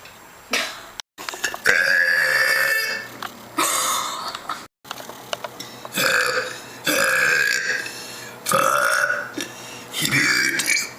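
A woman letting out several long, loud burps one after another, brought up by carbonated fizzy drinks.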